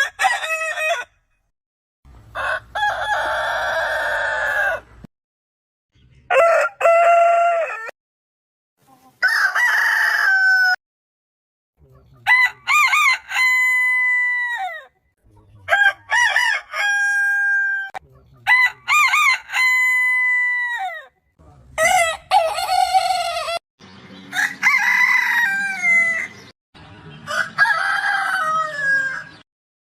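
Roosters crowing one after another, about ten crows of one to three seconds each, many ending in a falling drawn-out note, with abrupt silent breaks between them.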